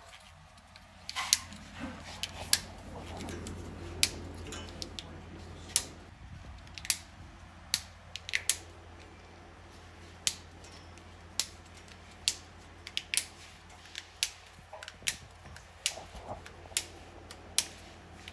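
The plastic tabs of a CNC router's cable carrier (drag chain) being pressed shut one after another as the cable is seated: about twenty sharp plastic snaps at irregular intervals.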